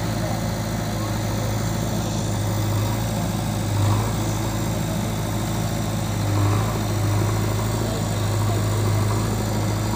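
Diesel engines of a JCB 3DX backhoe loader and a Mahindra 575 DI tractor running steadily with a deep hum, rising briefly in revs a few times, about four and six and a half seconds in.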